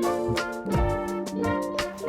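Background music: a mellow instrumental track with sustained keyboard chords and a steady beat.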